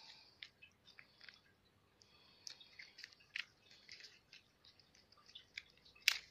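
Fidget cube being fiddled with: quiet, irregular small clicks and rattles from its buttons, which click down over a little metal piece inside. One sharper click comes near the end.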